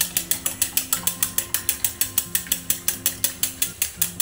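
Metal chopsticks beating raw eggs in a ceramic bowl, rapid even clicks against the bowl at about eight or nine strokes a second.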